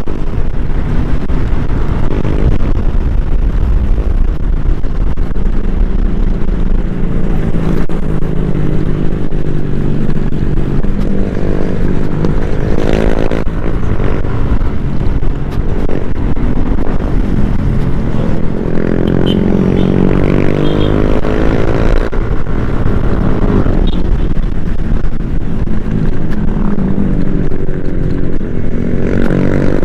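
Yamaha NMAX scooter's engine running under way over a steady low rumble. Its pitch rises several times as it accelerates.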